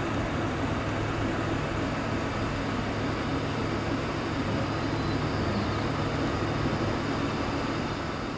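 Steady rumble of a freight train out of sight, with a low locomotive engine drone running under it throughout.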